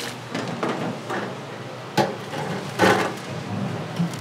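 Kitchen clatter: a handful of short, sharp knocks and clacks of utensils and fryer baskets, the loudest two about two and about three seconds in.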